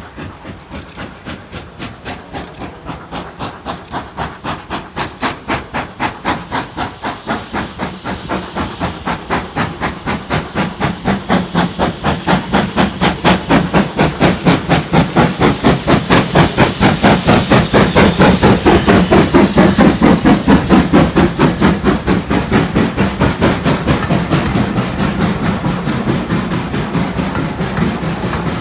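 Steam locomotive hauling a passenger train, working hard: an even run of exhaust chuffs that grows louder as it approaches and is loudest about two-thirds in, then eases as the coaches roll past near the end.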